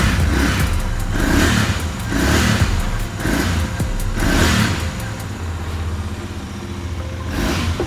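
Royal Enfield 650 parallel-twin engine idling with a smooth, even beat and steady rpm after a valve clearance adjustment: no tappet noise. A regular swell comes through about once a second over the steady engine note.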